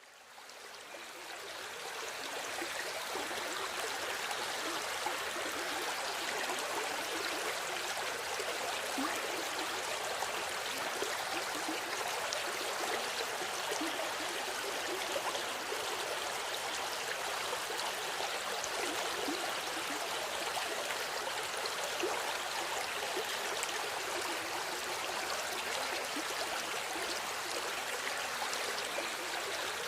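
River water flowing steadily, a constant rushing and gurgling that fades in over the first couple of seconds.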